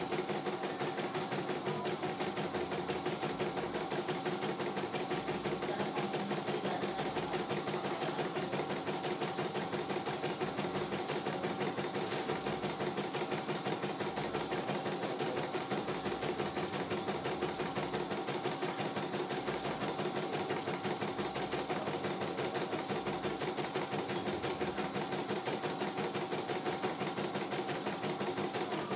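CNY E900 computerized embroidery machine stitching a design, its needle running steadily at a rapid, even rate without pausing while the hoop carriage moves the fabric.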